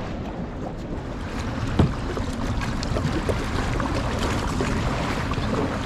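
Kayak moving across open water: a steady wash of water and wind noise, with one sharp knock about two seconds in.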